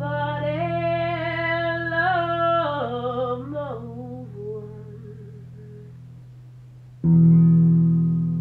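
A woman singing into a microphone over guitar: she holds one long note with vibrato, then sings a falling phrase that fades out about four seconds in, while a chord rings low underneath. About seven seconds in a new, louder chord is struck and rings on.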